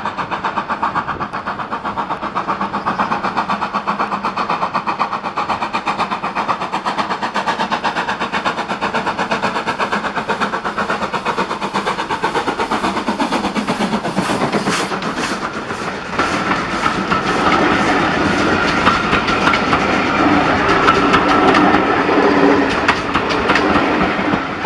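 BR Standard Class 4MT 2-6-0 steam locomotive working a train, its exhaust beating in a rapid, even rhythm as it approaches. About two-thirds of the way through it passes close and gets louder, and the coaches follow, wheels clattering over the rail joints.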